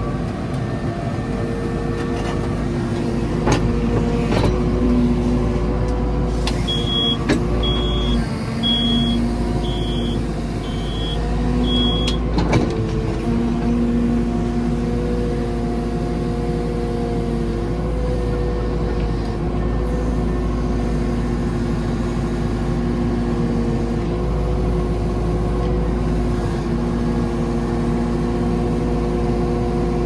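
JCB 4CX backhoe loader's diesel engine running under hydraulic load as the backhoe digs, heard from inside the cab, its note rising and falling with the work. A few sharp clunks come in the first half.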